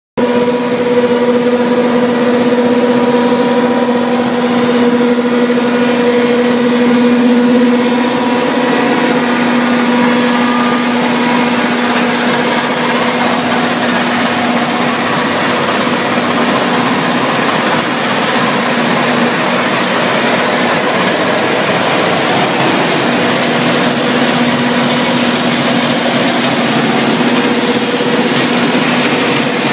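Sawdust-making machine (drum wood chipper) running steadily: a loud, even machine hum over a dense rushing noise. The hum fades somewhat in the middle and comes back strong near the end.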